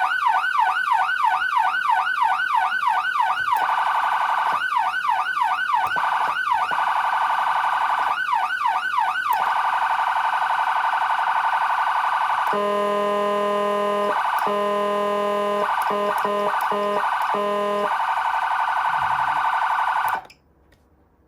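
Whelen CenCom RED siren amplifier sounding its high-pitched electronic siren: a fast up-and-down warble, about three sweeps a second, broken several times by a steady held tone. About twelve seconds in it switches to a lower, buzzing air-horn tone blasted in short bursts, then a steady tone that cuts off suddenly near the end.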